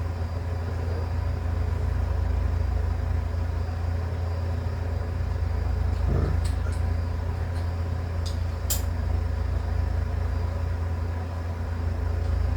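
Steady low hum of background equipment, with a few small sharp clicks around the middle and another near the end.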